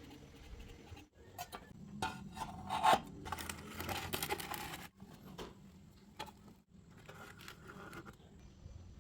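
Thin sheet metal being handled: light metallic clinks, taps and scraping, with a busier stretch of scraping from about two to five seconds in.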